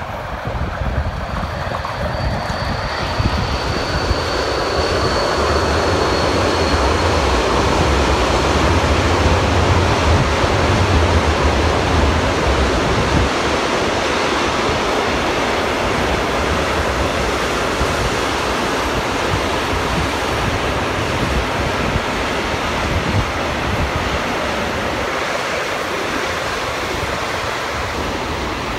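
Freight train hauled by two DB Traxx electric locomotives running past, a steady rumble of wagons on the rails that builds to its loudest about ten seconds in and then eases, with a faint high whine over the first several seconds. Wind buffets the microphone throughout.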